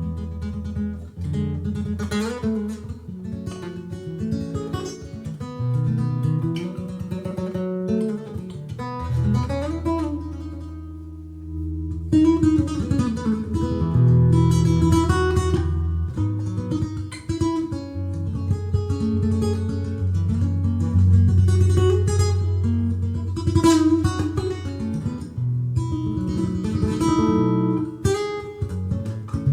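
Breedlove Discovery concert acoustic guitar played solo: picked melody notes over a steady bass line, with louder strummed chords in the second half.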